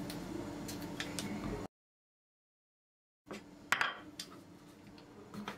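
A kitchen knife and pickled gherkins handled on a wooden cutting board: a few light clicks and knocks, the clearest about two-thirds of the way through. A gap of dead silence about a second and a half long breaks it near the middle.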